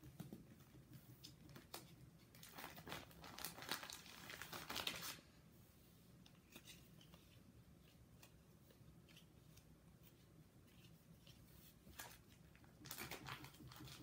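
Plastic binder sleeve pages crinkling and rustling as baseball cards are handled and slid into their pockets, in bursts through the first five seconds and again near the end, with near quiet between.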